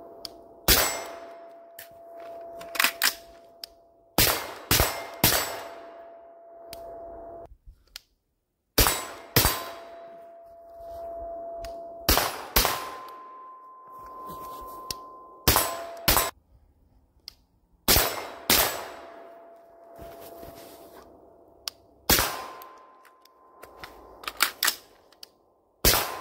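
Suppressed AR-15 carbine, fitted with a YHM Turbo K suppressor, fired repeatedly: sharp reports at uneven spacing, some single and some in quick pairs or triplets. A faint steady tone sits under the shots.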